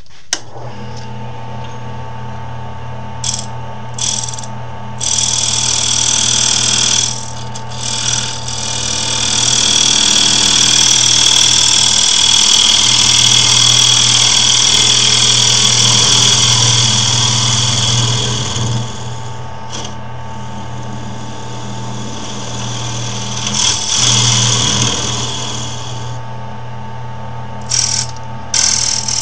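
Wood lathe motor running steadily while a turning tool cuts into the spinning wood to deepen a hollowed recess. The cutting hiss comes in a few brief touches, then a long cut of about ten seconds, a shorter cut about two-thirds through, and a couple of quick touches near the end.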